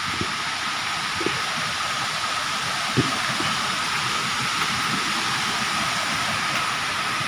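A steady hiss runs throughout, with a few soft thuds of footsteps on a muddy dirt path.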